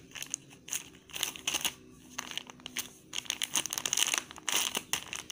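Plastic packaging crinkling in irregular crackles as it is handled.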